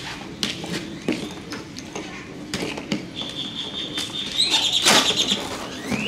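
Packing tape being picked at and peeled off a cardboard box, with scratching and small knocks on the cardboard and a high rasp of tape coming away in the second half. A loud knock about five seconds in.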